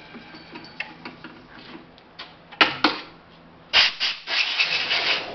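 Sharp metal knocks and clinks on a drill press's angle-iron jig as the clamp is worked and the drilled steel pipe is handled. Two loud knocks come about two and a half seconds in, then another knock and about a second of rapid rattling, scraping metal near the end.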